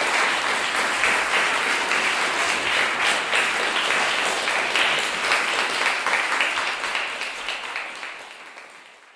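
Audience applauding after a poem, dense clapping that dies away near the end.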